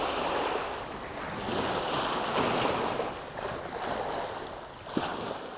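Small waves washing up and draining back over a pebble beach, the rush of surf swelling and easing twice, with one sharp click near the end.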